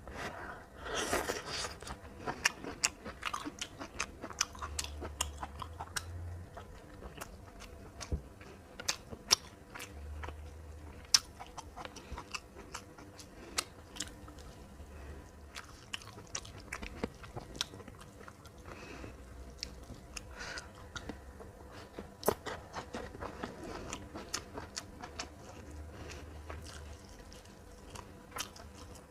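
Close-up eating sounds: a person chewing and biting crunchy food, with many sharp, irregular crunches and clicks, a dense run of them about a second in. The meal is fried fish with green beans and rice.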